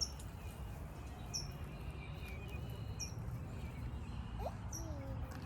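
A bird chirping, one short high chirp about every second and a half, over a steady low background rumble.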